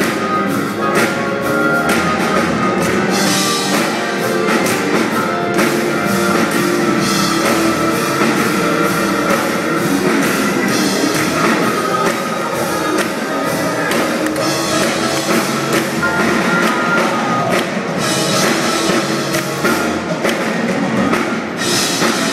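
Live gospel music from a church band, with drum kit and guitar playing steadily.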